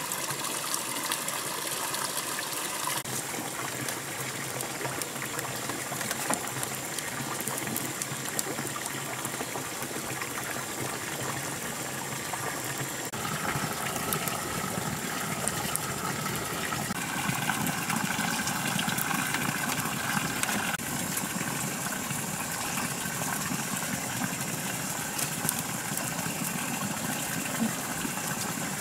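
Steady rush of running water, as of water pouring from a pipe into a filled bathtub, with scattered small clicks; its texture shifts a little several times.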